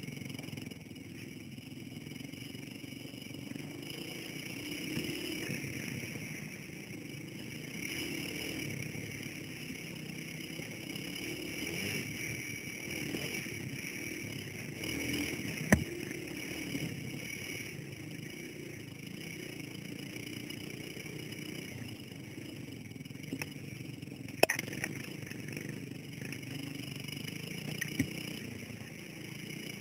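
Dirt bike engine running as it rides a rutted trail, the revs rising and falling with the throttle. A few sharp knocks come as the bike crosses the rough ground, the loudest about 16 and 24 seconds in.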